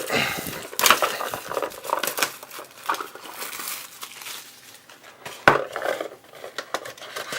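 Packaging of a retail trading-card box rustling and crinkling as it is handled and unpacked, with scattered sharp taps and clicks, the loudest about a second in and around five and a half seconds in.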